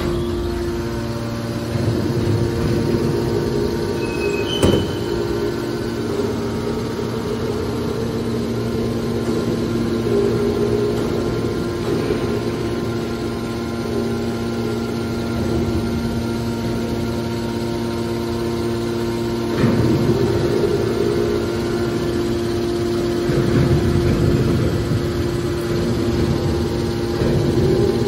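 Hydraulic scrap-metal baler's power unit, an electric motor driving a hydraulic pump, running with a steady hum. A lower rumble swells now and then, and there is a single sharp knock about five seconds in.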